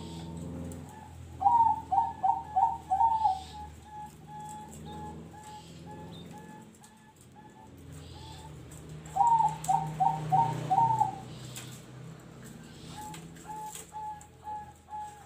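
Zebra dove (perkutut) singing its cooing song twice: a run of about five quick, loud notes, then a string of softer, evenly spaced notes at the same pitch. This song pattern is the one fanciers call 'noklak nekung'.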